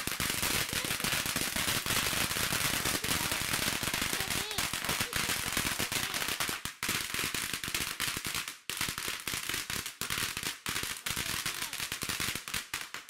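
Ground firework going off, throwing sparks and stars: a dense, rapid run of crackles and bangs that thins out after about six seconds into separate pops with short gaps between them.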